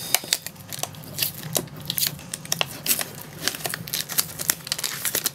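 Plastic shrink wrap being picked at and torn off a Blu-ray SteelBook case by fingers: irregular crinkling and crackling.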